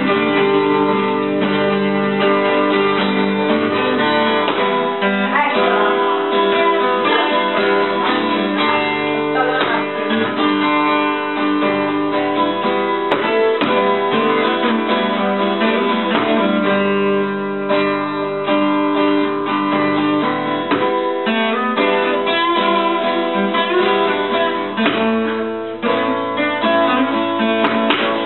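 Acoustic guitars strummed and picked together, playing a continuous tune.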